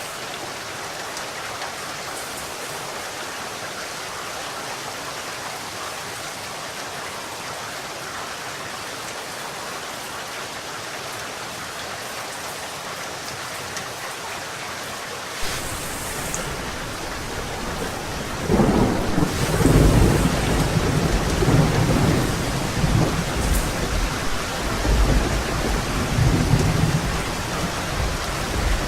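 Steady heavy rain hissing. About halfway through comes a sharp crack, and from about two-thirds in long rolls of thunder rumble over the rain.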